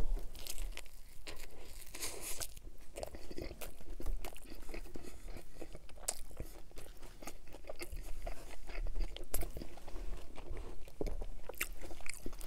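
Close-miked biting and chewing of a Subway Italian BMT sub on Italian herb and cheese bread: irregular crunches and wet mouth sounds, with a fresh bite near the end.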